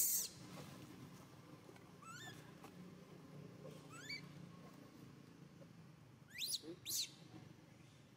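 Baby monkey giving short, high-pitched squealing cries that slide up in pitch: a loud one at the start, fainter ones about two and four seconds in, and two loud ones near the end.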